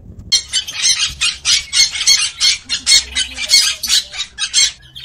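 A parrot calling in a rapid run of short, harsh calls, about four a second, stopping near the end.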